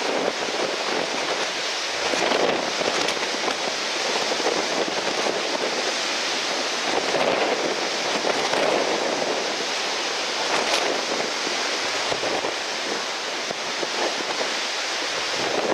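Steady rushing noise of strong wind and surf.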